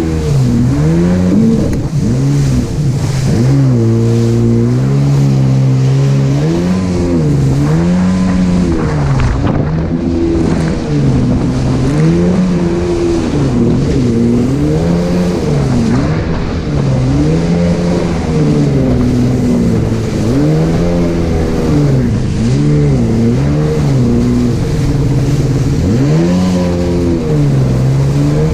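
Jet ski engine running hard under way, its pitch rising and falling over and over, about every couple of seconds, with wind and water rushing over it.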